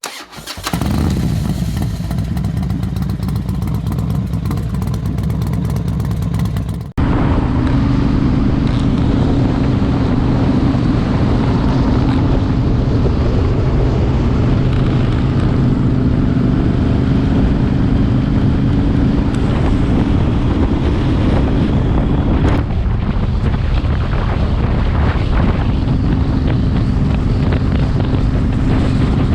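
Motorcycle engines running at a steady pace on the road, with wind noise on the microphone. The sound cuts abruptly to a similar steady engine sound about seven seconds in.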